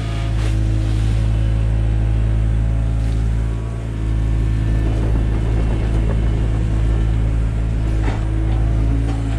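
Takeuchi TB175 excavator's diesel engine running steadily under working load, with a couple of sharp knocks shortly after the start and about 8 seconds in, and a stretch of rough, grainy noise in the middle.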